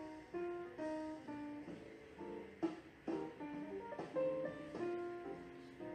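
Instrumental background music: a melody of short, separate notes, guitar-like with some piano.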